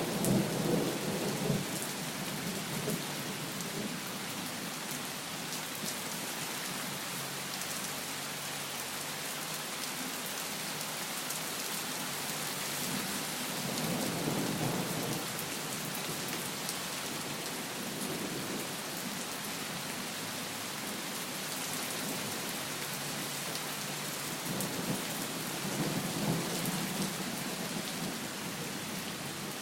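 Heavy rain pouring down as a steady hiss, with low rolls of thunder rumbling near the start, about halfway through and again near the end.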